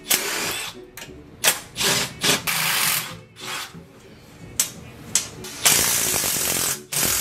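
Cordless impact driver backing out the 7/16-inch bolts that hold down a sump pit lid. It runs in a string of short bursts, the longest a little over a second, with short pauses between.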